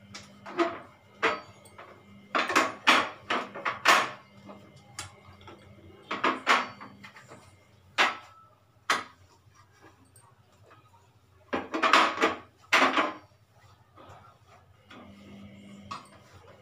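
Metal pan supports and burner caps of a glass-top gas stove clattering as they are lifted off, wiped and set back down: a series of sharp knocks and clinks in clusters, over a low steady hum that drops out in the middle and comes back near the end.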